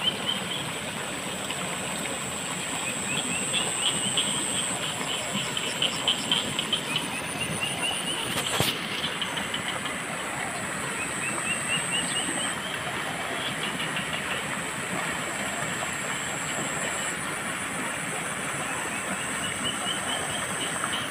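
Flowing river water, a steady rushing sound, with a steady high whine and repeated runs of rapid chirps over it. There is one sharp click about eight seconds in.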